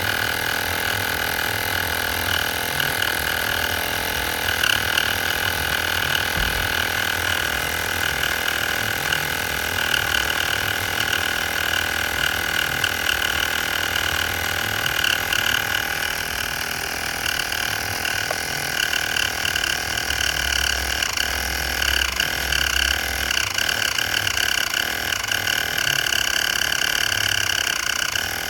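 A motor running steadily with a constant high whine over a low pulsing throb.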